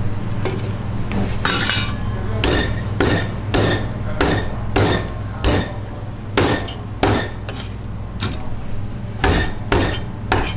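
Cleaver chopping mullet fillet on a thick wooden chopping block: more than a dozen sharp knocks, about one every half second to second, starting about a second and a half in. A steady low hum runs underneath.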